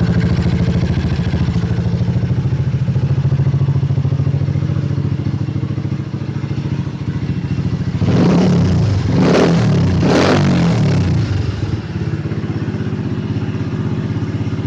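Dirt bike engine running through a custom muffler: a steady idle, then revved twice about eight and ten seconds in before settling back to idle.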